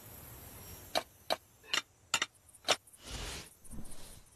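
Cartoon sound effects: six sharp, irregular clicks over about two seconds, then two short swells of rough rubbing noise near the end.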